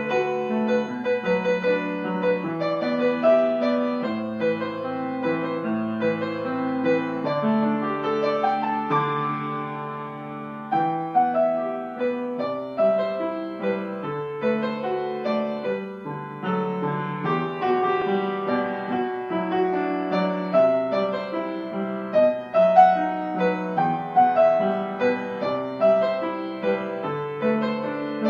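Piano music: a melody of held notes over lower chords.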